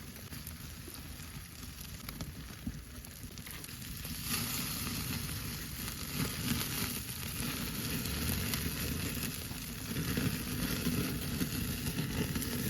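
Oysters topped with garlic butter and cheese sizzling on a grill, a steady sizzle that gets louder about four seconds in.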